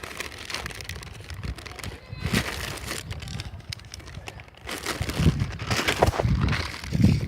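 Speaker packaging being handled and unwrapped: irregular rustles and small clicks, growing louder about five seconds in.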